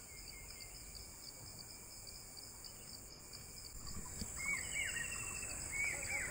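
Outdoor insect and bird ambience: a steady high-pitched insect drone, with birds giving short chirping calls that come more often from about four seconds in.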